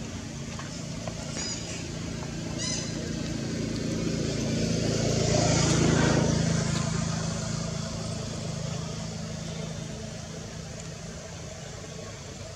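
A motor vehicle passing by: a low engine hum with tyre noise that swells to a peak about six seconds in, then fades. Two short high chirps sound early on.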